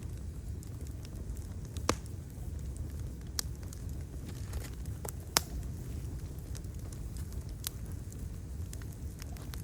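Wood fire crackling: scattered sharp pops, the loudest about two seconds in and just after five seconds, over a steady low rumble.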